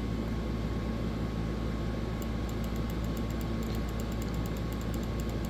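Steady low hum of background room noise, with a run of faint, quick ticking, several a second, starting about two seconds in.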